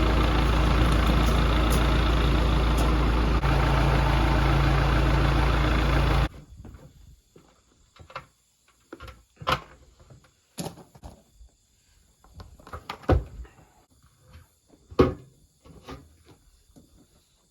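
John Deere backhoe's diesel engine running steadily, stopping abruptly about six seconds in. After that come scattered sharp knocks and clanks of metal work, a few of them louder.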